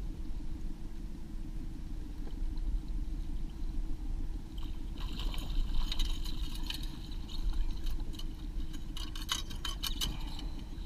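A small outboard motor runs steadily at trolling speed. About five seconds in, a hooked cutthroat trout splashes at the surface in the landing net. Near the end comes a quick run of knocks and rattles as the net is brought aboard the aluminum boat.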